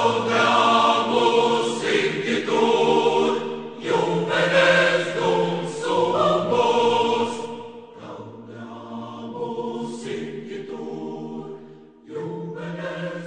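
A choir singing: full and strong for the first several seconds, then softer, swelling again near the end.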